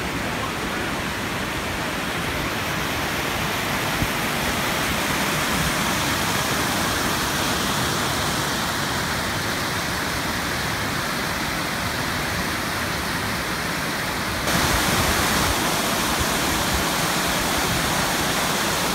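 Waterfall in high spring snowmelt flow, rushing water making a steady roar. It gets suddenly louder and brighter about two-thirds of the way through.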